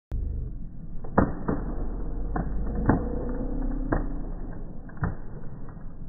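Slowed-down sound of tree removal work: a steady low rumble with about six separate sharp knocks spread through it.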